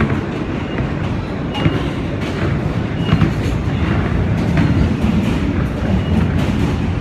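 Alstom-propulsion R160B subway car running at speed, heard from inside the car: a steady low rumble of wheels on rail with occasional clicks over the track.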